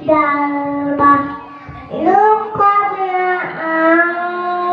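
A small boy chanting Qur'an recitation in the melodic qari style, drawing out long held notes with gliding ornaments. There is a short pause about a second and a half in, then a new phrase starting with a rising note.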